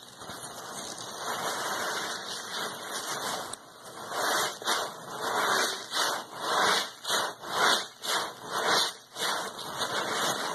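A sponge soaked in sudsy pine cleaner being worked and squeezed in thick foam: a steady wet foamy hiss, then from about four seconds in a run of rhythmic squishy squeezes, nearly two a second.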